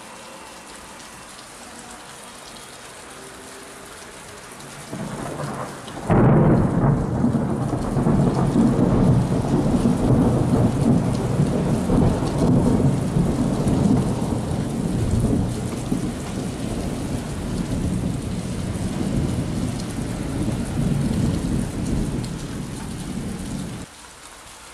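Thunder over steady rain. About five seconds in the thunder begins, breaks into a sudden loud crack about a second later, and goes on as a long deep rumble that slowly eases for nearly twenty seconds before cutting off suddenly near the end.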